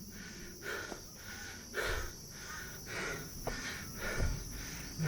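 Steady high-pitched chorus of insects on a wooded hillside, with footsteps on the trail about twice a second.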